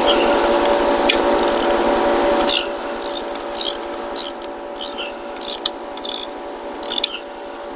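A hand ratchet with a Torx bit tightening the motorcycle's handlebar control bolts, giving short rasping ratchet bursts about every half second with each back-swing. Under the first couple of seconds a steady hum runs, then stops about two and a half seconds in.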